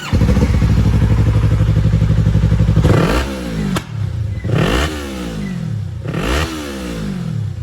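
Yamaha R3's parallel-twin engine through a modified full-system exhaust, revved in neutral: held steady at high revs for about three seconds, then blipped three times, each rev dropping back down. A sharp backfire pop comes about four seconds in.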